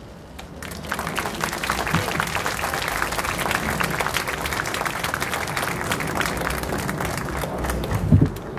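An audience clapping in applause, swelling up about half a second in, holding steady, and dying away near the end.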